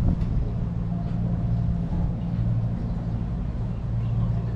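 Houseboat's engine running with a steady low hum as the boat is steered away from its mooring.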